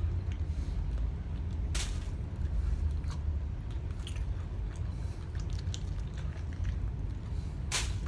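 A person chewing and biting into whole chicken wings, with scattered wet mouth clicks and two sharper crunching bites, one about two seconds in and one near the end.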